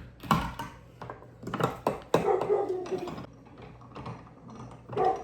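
Hands packing boudin meat down into a sausage stuffer to force out the air: a run of knocks and thuds, mostly in the first three seconds, then quieter handling.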